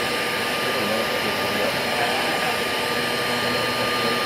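Vacuum cleaner running steadily with a thin, high whine over its rushing noise, its nozzle being worked over a cat's coat to suck up fleas.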